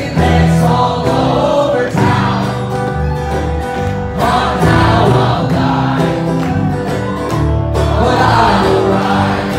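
Live acoustic folk music: a man singing at the microphone over a strummed acoustic guitar.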